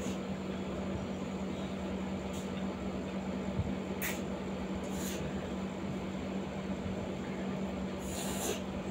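Air conditioner running in the background with a steady hum and a constant low tone. A few short hissy slurps of drinks through straws come over it, the longest near the end.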